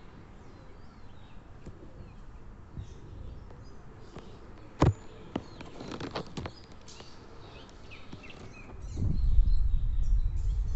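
Faint, short bird chirps over quiet outdoor background. There are a few sharp clicks a little before the middle, and from about nine seconds in, wind buffets the microphone with a loud low rumble.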